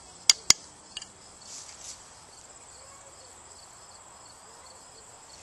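Two sharp taps of a knife on wood near the start, a knife being knocked against a wooden hand-drill fireboard, with a fainter tap about a second in. Crickets chirp steadily in a rapid, even, high-pitched trill throughout.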